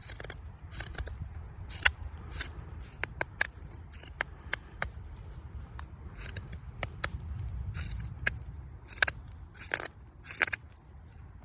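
Victorinox Venture's full-flat-ground 14C28N blade push-cutting green hazel: a run of short, irregular slicing clicks and scrapes as shavings come off the wood, over a steady low rumble.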